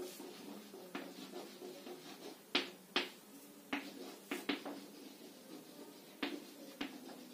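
Chalk writing on a blackboard: faint scratching broken by sharp taps as the chalk meets the board, about eight in all, the loudest a little under three seconds in.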